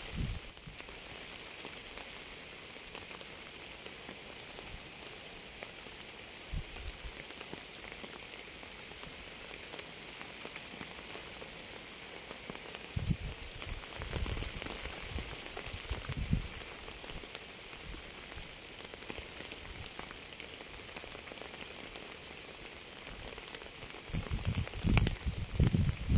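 Steady rain falling: an even hiss of drops on surfaces. A few brief low rumbles come through it midway, and a stronger one near the end.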